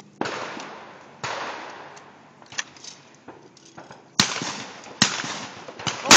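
Shotgun shots, each a sharp bang with a fading echo: two in the first second and a half, two more about four and five seconds in, and a louder one at the very end.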